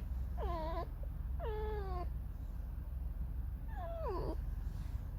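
Fox giving three drawn-out, squeaky whining calls, each about half a second long, the last one falling in pitch.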